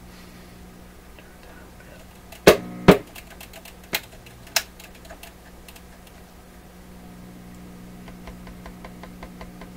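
A PYE 39HC shortwave valve receiver giving a steady low hum with no station coming through, broken by two loud clicks and pops about two and a half seconds in, sharper clicks near four and four and a half seconds, and a scatter of faint ticks as the band switch and tuning are worked.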